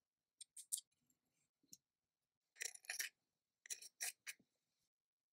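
Short, sharp clicks and taps of small kitchen utensils being handled, in three brief clusters: one about half a second in, a louder run near three seconds and another near four seconds.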